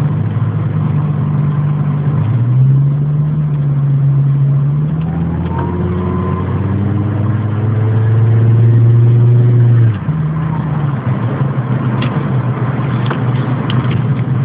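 1995 Volvo 855 T5-R's turbocharged five-cylinder engine running under load while driving, its pitch stepping up about two seconds in. A high-pitched whine rises and holds from about five seconds in, the weird noise that comes in only above about 2000 rpm while driving; the engine note drops suddenly about ten seconds in, and a few sharp clicks come near the end.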